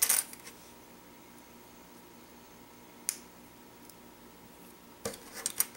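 Small plastic toy train track pieces clicking and tapping against each other and the tabletop as they are handled and fitted together: a click at the start, another about three seconds in, and a quick run of clicks near the end.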